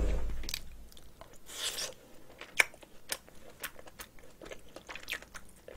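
Close-miked chewing of a mouthful of rice mixed with spicy marinated cockles: a low thump as the spoon goes in, then a run of wet mouth clicks and smacks.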